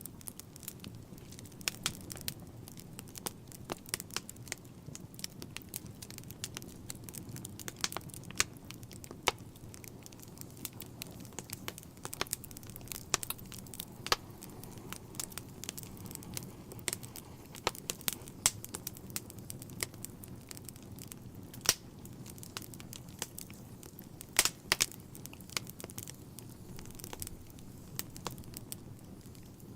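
Logs burning in a fireplace, crackling: irregular sharp snaps and pops, several each second with an occasional louder one, over a steady low rumble of the fire.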